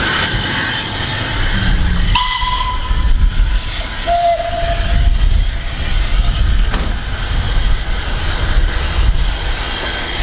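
Passenger coaches running along a station platform, heard from an open carriage window: a steady low rumble of the train, with two short high-pitched tones about two and four seconds in.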